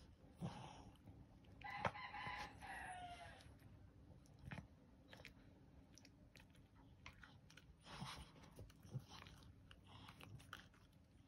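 Puppy chewing and mouthing a plush toy: soft, scattered chewing clicks and crunches, with one longer squeaky sound, slightly falling in pitch, about two seconds in.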